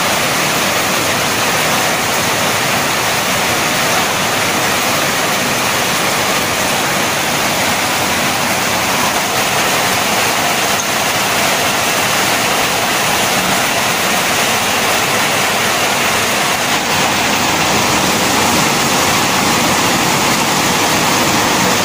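A steady, loud rushing noise that holds even throughout, with no rhythm, pitch or separate knocks in it.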